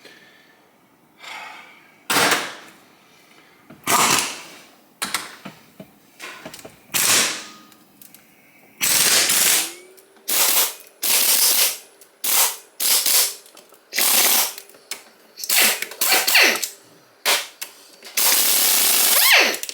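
Impact wrench rattling in about a dozen short bursts, each from half a second to nearly two seconds long, working fasteners loose on an engine being torn down.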